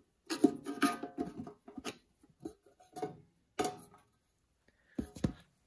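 Metal lid being worked open on a gallon can of carburetor parts cleaner. There is metallic scraping and rattling for about the first second, then a handful of separate clicks and knocks as the lid comes off.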